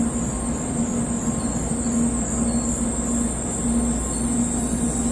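Shinkansen train moving along the station platform: a steady rumble with a humming tone that comes and goes.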